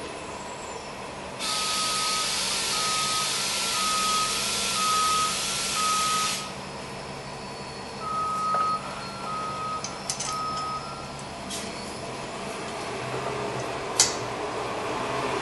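A backup alarm beeping about once a second, eight beeps in two runs. The first five come over a loud steady hiss that cuts off suddenly; a few sharp clicks follow, one loud near the end.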